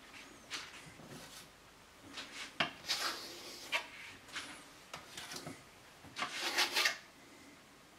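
A metal knife scraping over a wooden cutting board in several short strokes, clearing spilled white couverture off the board. The loudest strokes come near the end.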